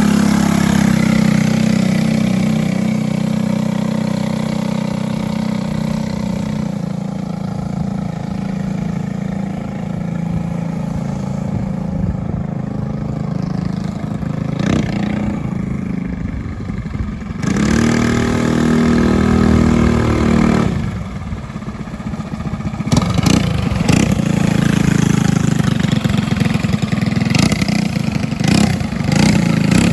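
Go-kart engine running, idling and being revved with the throttle pedal, its note rising and falling several times. This is a throttle check after the pedals were adjusted: it should idle without creeping and reach full throttle with the pedal pressed all the way.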